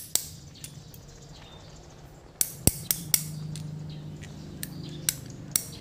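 Metal tools and engine parts clinking as a wrench and bolts are handled over a stripped two-stroke motorcycle engine: a handful of sharp clicks and knocks, several in quick succession about two and a half seconds in. A low steady hum sets in about three seconds in.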